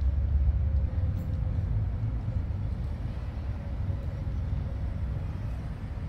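Steady low rumble of city street traffic, a little louder in the first second, with a faint steady hum over it.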